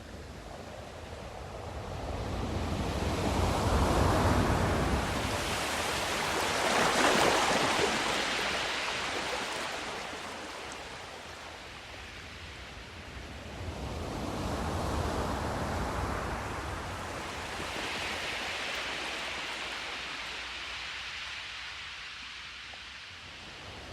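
Ocean surf: waves washing in and drawing back, the rush of water swelling and easing in slow surges, with two big ones in the first half and two gentler ones later.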